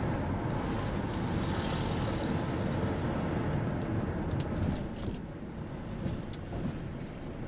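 A car driving, with steady engine and road noise.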